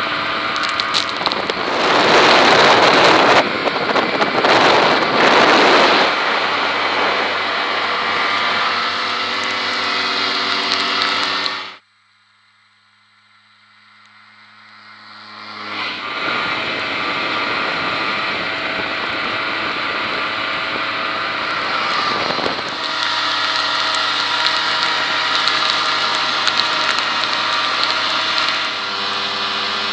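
Snowmobile engines running under way, picked up by a helmet-mounted camera, with a loud rushing noise for a few seconds near the start. The sound cuts out abruptly about twelve seconds in and fades back up over the next four seconds.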